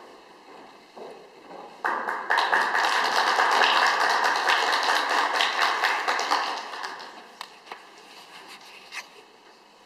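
Audience applauding: a dense patter of many hands clapping starts about two seconds in, holds for about four seconds and fades away, leaving a few scattered claps near the end.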